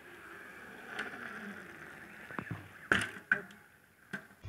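A mountain bike rolling past on tarmac, with a few sharp clicks and clacks from the bike, the loudest about three seconds in.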